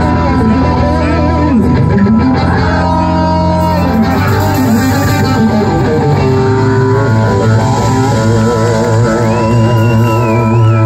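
Live rock band playing loudly: electric guitars, drums and keyboards. A lead guitar bends and slides between notes, with wide vibrato in the last few seconds.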